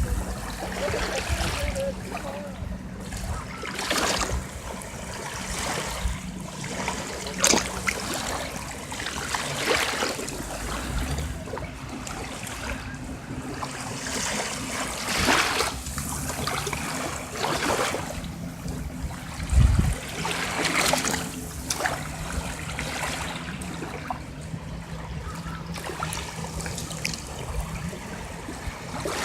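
Gentle sea waves washing and lapping at the shore, a brief rush of water every two to three seconds over a steady wash.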